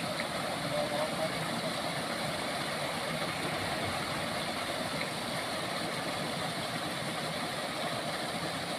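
Steady rush of water spilling over a low concrete weir in a drainage channel.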